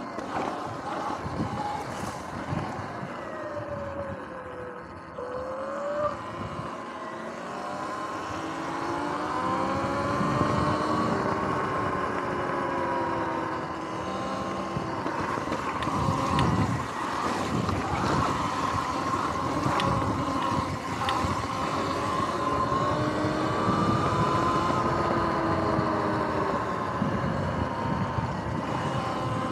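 Sur-Ron X electric dirt bike's motor and drive whining, the whine gliding up and down in pitch as the bike speeds up and slows. A rough rushing noise runs under it and grows louder about ten seconds in.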